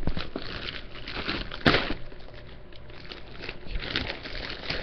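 Clear plastic wrapping crinkling and rustling as it is pulled off a computer tower, with one sharp crackle about two seconds in.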